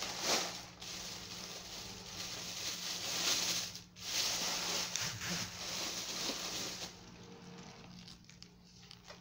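Rustling of a plastic shopping bag as vegetables are rummaged through, loud for about seven seconds with two brief pauses, then softer. A faint steady low hum runs underneath.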